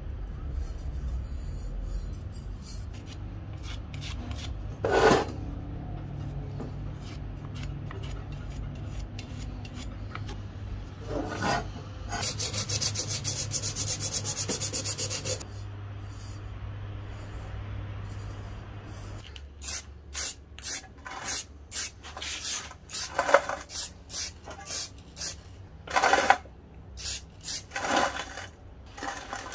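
Rusty metal being abraded by hand. It starts over a steady low hum with a few single scrapes and a few seconds of a fast, dense rasp. It ends in rhythmic back-and-forth strokes, about one and a half to two a second.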